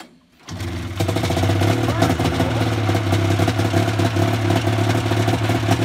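Engine of a homemade six-wheeled utility vehicle, coming in about half a second in and then running steadily and loudly.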